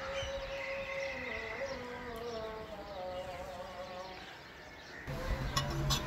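Background music: a slow melody held on long, wavering notes. A low hum comes in about five seconds in, and a few sharp clicks sound near the end.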